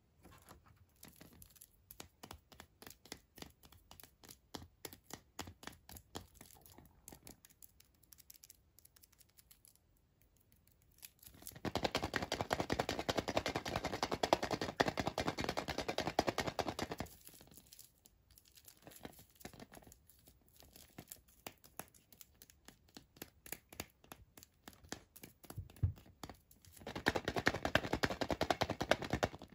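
Foil wrapper of a Kinder Surprise Maxi chocolate egg crinkling as the egg is handled and turned in the hands. Light scattered crackles at first, then a loud stretch of dense crinkling about twelve seconds in lasting some five seconds, and another near the end.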